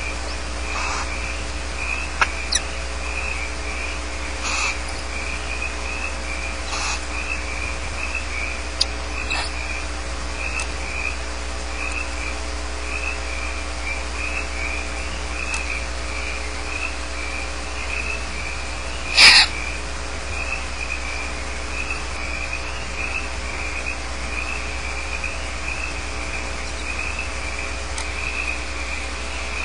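Barn owls in a nest box giving a few short hisses, one much louder about nineteen seconds in. Beneath them runs a steady, rapidly pulsing chirping chorus and a low hum.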